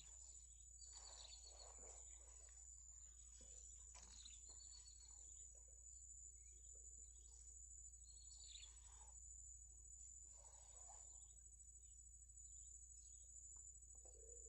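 Faint outdoor ambience: a steady high-pitched insect drone, with a few faint bird chirps.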